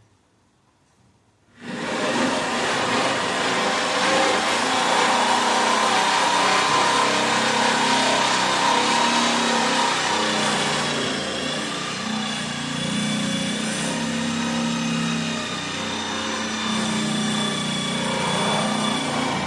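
A loud machine motor starts abruptly near the start and then runs steadily, a dense mechanical noise with a few held tones that shift slightly.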